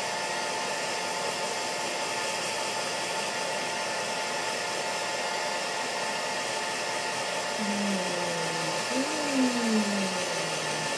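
Hair dryer running steadily: a constant rush of air with a steady whine. Near the end a low pitched sound slides up and down over it.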